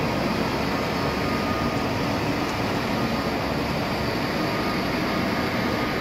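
Steady factory-floor background noise: an even rushing noise with a faint, steady high whine, with no knocks or changes.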